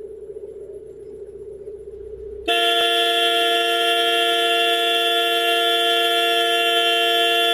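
Car horn held in one long, steady blast that starts abruptly about two and a half seconds in. Before it there is a quieter steady hum.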